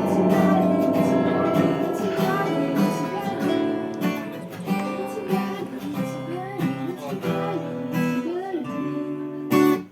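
Acoustic guitar being strummed, with bent, sliding notes through the middle. It ends on one loud, sharp strum and stops abruptly.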